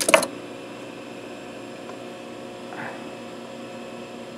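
Steady electrical hum of an idle Juki industrial sewing machine, with a quick cluster of sharp clicks right at the start.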